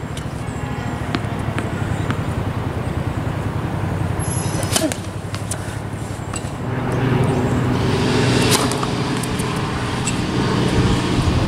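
Steady outdoor noise, like wind on the microphone and distant traffic, with a low hum. A few sharp knocks of a tennis ball being bounced and struck with a racket on a hard court come through it.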